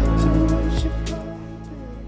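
Background music with held, steady notes that drops sharply in level a little over a second in.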